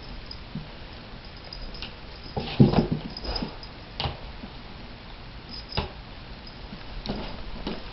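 A pet cat making a short sound about two and a half seconds in, with a few scattered clicks and knocks around it.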